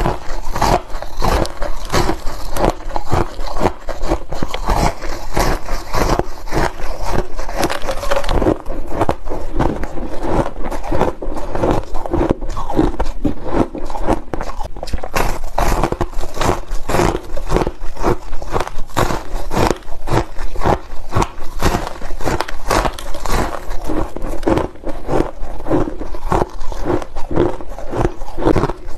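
A person biting and chewing chunks of compacted shaved ice close to the microphone: continuous, rapid crunching and crackling with no pause.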